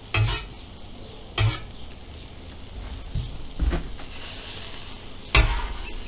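Metal spatula scraping and knocking on a steel flat-top griddle, four sharp strikes, the last the loudest. Underneath, chopped vegetables and eggs sizzle steadily as they fry.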